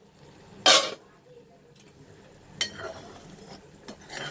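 A steel lid clanks once, loudly, about a second in as it comes off a pressure-cooker pan. Then a metal ladle clicks and scrapes against the pan, stirring thick cooking rose apple jam.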